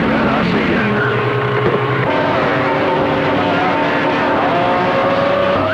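CB radio receiving on channel 28, full of static and long-distance skip signals, with several steady whistling tones that jump to new pitches every second or two.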